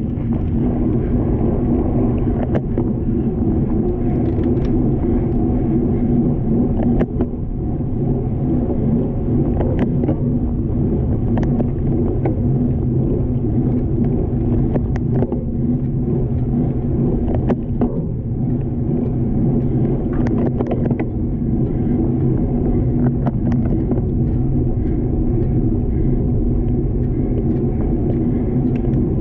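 Steady low rumble of road and wind noise while riding a road bicycle in a race, with scattered short clicks.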